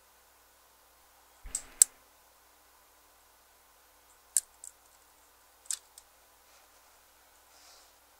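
Small sharp clicks and taps from handling the parts of a cassette deck's idler mechanism while its springs are being fitted. There is a dull knock and click about one and a half seconds in, then two pairs of lighter clicks.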